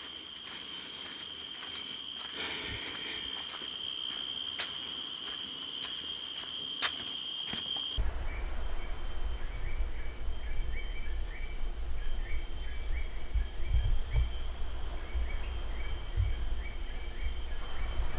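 Rainforest insect chorus: a steady high-pitched drone of several held tones. About 8 seconds in the sound changes abruptly to a low rumble on the microphone, with fainter insect tones and groups of short repeated chirps.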